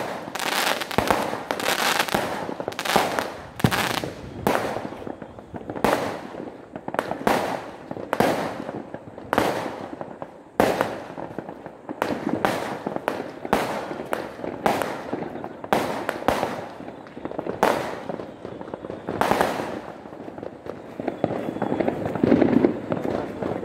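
Aerial fireworks going off in a long run of sharp bangs, one or two a second at uneven spacing, thinning out near the end.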